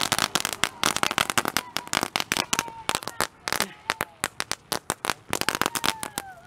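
Firecrackers going off on the ground in a rapid, uneven run of sharp pops that thins out briefly about halfway through, then picks up again.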